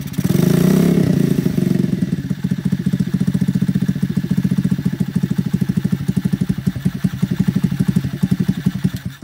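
The AJS Raptor DD50E's small 50cc motorcycle engine running. It is a little higher and louder for the first couple of seconds, then settles into an even, rapid idle pulse, and it cuts off abruptly at the end.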